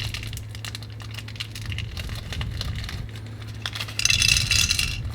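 Plastic candy toy holding gumballs being handled: scattered small clicks and taps, with a brief rattle of the gumballs about four seconds in, over a low steady hum.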